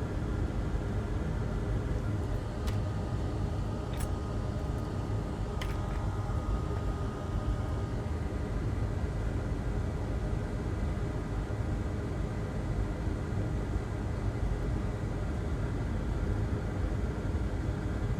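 Steady low rumbling hum, with three faint ticks in the first six seconds.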